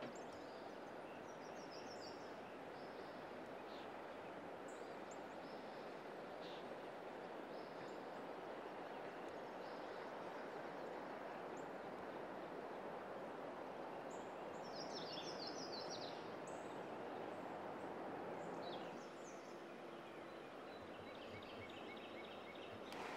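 Faint outdoor ambience: a steady hiss of background noise with songbirds chirping now and then, a quick run of chirps in the middle.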